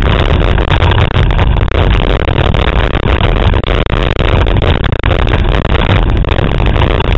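Loud wind buffeting the microphone of a camera mounted on a Taipan 4.9 catamaran sailing at speed, with water rushing past the hulls.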